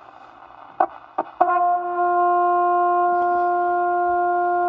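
A few clicks, then a steady test tone from the signal generator comes through the Cobra 29 WX NW ST CB radio's speaker on channel 15, starting about a second and a half in and holding at one pitch. A clean received tone like this shows the receiver is working after the reflowed solder joints.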